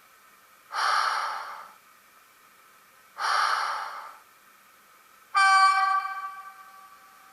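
Sound decoder of an ST43-381 model locomotive playing its sound samples through the model's small speaker: two short air hisses about two and a half seconds apart, then a loud horn blast about five seconds in that starts suddenly and fades away.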